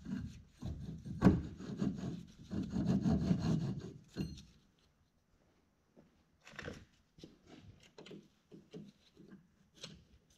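Clutch discs in a transmission clutch pack being worked and twisted by hand to line them up, with rough rubbing and scraping for about four seconds. After a short pause there are a few faint clicks and knocks from the parts being handled.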